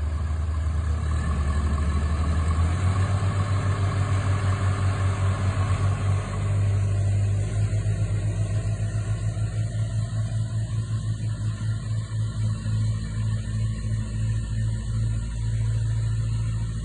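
Heavy-equipment engine running, stepping up in speed about three seconds in and again about seven seconds in, then holding with a steady throb.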